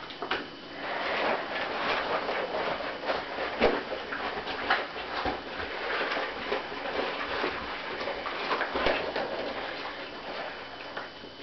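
Inflated latex rubber suit creaking and squeaking as the wearer moves his arms, with rubber gloves rubbing on the latex: an irregular run of small squeaks and clicks.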